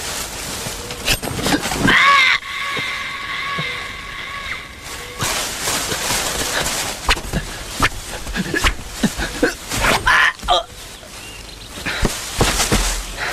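A man's cry that wavers and then turns into a long, held yell for about three seconds, followed by scuffling noises with sharp knocks and another short shout about ten seconds in.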